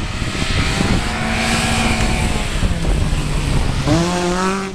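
Racing car engines running hard on a snow track, a dense mechanical rumble whose engine note holds steady and then drops a little about halfway through. A pitched, bending sound, like a voice calling out, comes in near the end.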